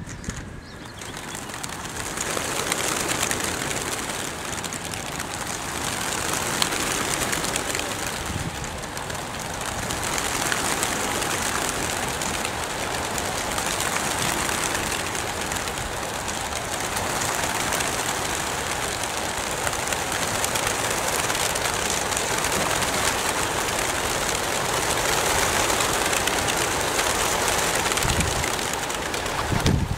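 A large flock of racing pigeons bursting out of a transport truck's crates, their wings flapping in a dense, steady rush that builds over the first couple of seconds.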